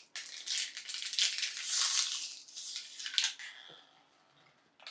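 Thin plastic water bottle crinkling and crackling as it is squeezed while being drunk from, stopping about a second before the end.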